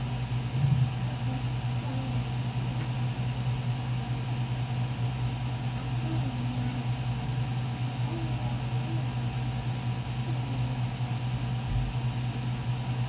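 A steady low mechanical hum that does not change, with faint voices in the distance a few times.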